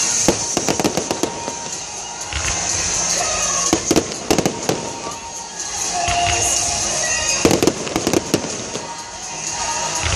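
Aerial fireworks bursting in quick clusters of sharp bangs: a run in the first second, another around the middle, and a third about three quarters through, over a steady background hiss.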